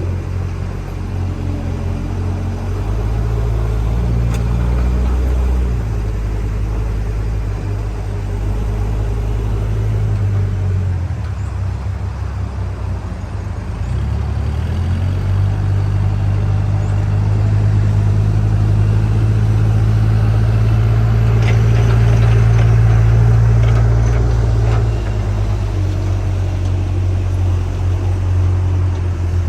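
A JCB backhoe loader's diesel engine running under work, its engine speed stepping up and down several times, with a few light metallic clinks about three-quarters of the way through.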